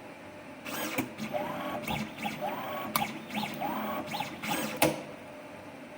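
Automatic coaxial cable stripping machine running a strip cycle: motors whine in three rising-and-falling sweeps between sharp mechanical clicks. The cycle starts about half a second in and stops about five seconds in.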